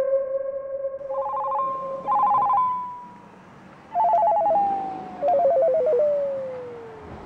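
Electronic telephone-style ringing: four bursts of a rapid two-tone trill, each burst lower in pitch than the one before, with the tone sliding down between them. A steady held tone fades out in the first two seconds.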